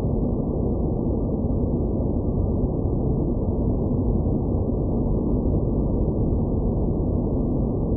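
Space-planet noise ambience: a steady, dense low noise with nothing above the low middle range, unchanging throughout.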